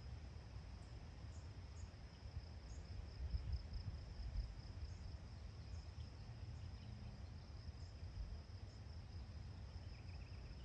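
A steady, high-pitched insect trill over a low wind rumble on the microphone; the rumble gusts louder a few seconds in.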